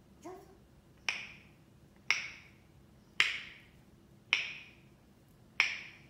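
African grey parrot making sharp wooden-sounding tongue clicks, five loud pops about a second apart, after a fainter one at the start.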